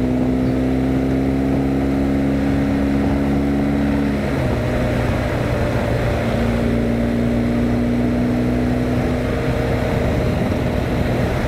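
BMW R 1250 GS Adventure's boxer-twin engine pulling at road speed. Its note rises gently, then drops suddenly about four seconds in as the bike shifts up a gear, and climbs again, with wind noise over the microphone.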